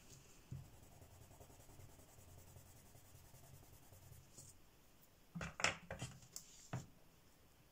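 Derwent Lightfast coloured pencil shading a swatch on paper: a faint, steady scratchy rubbing. About five and a half seconds in, a short cluster of sharp clicks and knocks as the pencil is put down.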